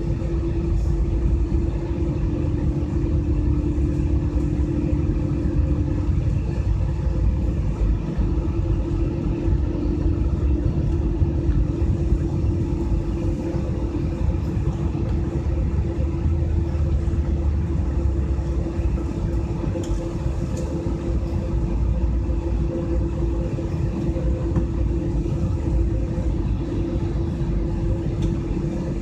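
Jet airliner engines and airflow heard from inside the passenger cabin: a steady drone with a low rumble and a constant hum.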